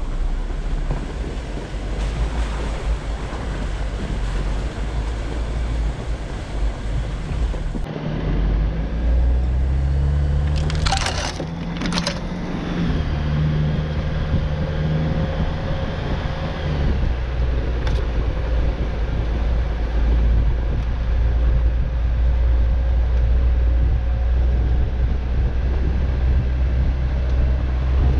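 Four-wheel-drive vehicle crawling up a snowy dirt trail: a steady low engine and tyre rumble with wind on the microphone. About eleven and twelve seconds in come a few sharp cracking crunches.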